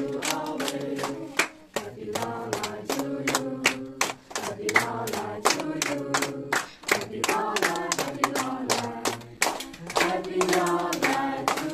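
A group of people singing a birthday song together while clapping along in a steady beat, about three to four claps a second.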